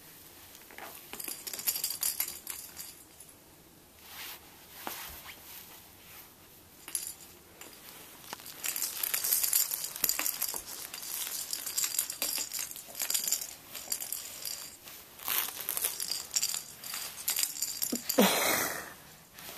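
A baby's plastic rattle ball toy jingling and rattling in bouts as it is grabbed and pushed about, with many small clicks. A louder burst comes near the end.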